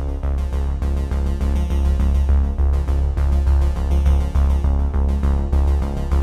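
Background music: electronic, synthesizer-led, with a heavy bass and a steady beat.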